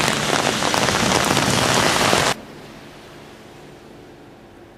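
Heavy rain falling on a wet street and pavement, a dense steady patter of countless drops. It cuts off abruptly about two seconds in, leaving only a faint hiss.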